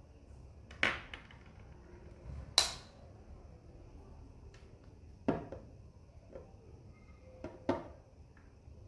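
Four sharp clicks and taps of small hard objects being handled, the loudest and sharpest about two and a half seconds in.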